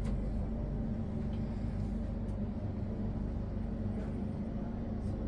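Steady low rumble with an even hum from a running vehicle, with a few faint clicks.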